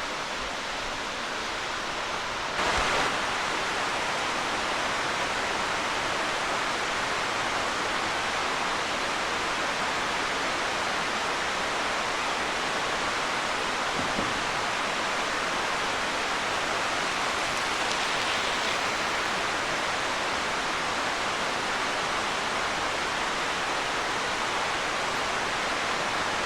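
Small waterfall running steadily: a constant even rush of falling water. A short knock about three seconds in, after which the water sounds slightly louder.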